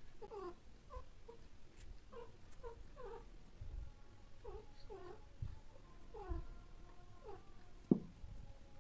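Domestic cats mating: a cat gives short, falling calls over and over, two or three a second, with a few longer drawn-out calls in between. A sharp knock sounds near the end.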